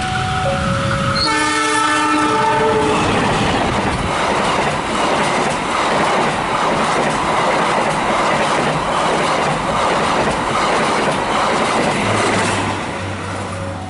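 A train sounds a chord horn for about a second and a half just after the start, then runs past with a loud, continuous clatter of wheels over the rail joints for about nine seconds. The clatter fades near the end, and a low steady hum takes over. A two-tone warning signal alternates at the very start.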